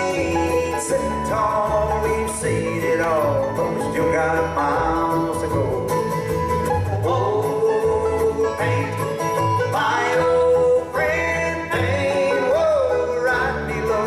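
Live bluegrass band playing a song on acoustic guitar, mandolin, banjo and upright bass, with a voice singing over a steady bass pulse.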